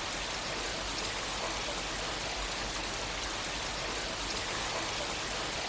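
Steady, even hiss of noise with no distinct events, like rain.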